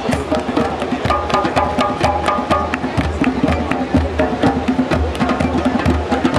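Percussion-led music: fast, steady drumming with a short repeated melodic figure over it from about a second in.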